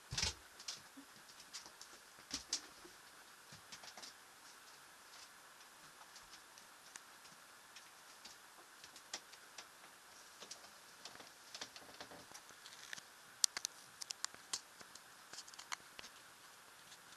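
Faint, irregular clicks and small taps over a low hiss, with a cluster of sharper clicks about thirteen to fifteen seconds in: handling noise from a handheld camera being carried through a boat's cabin.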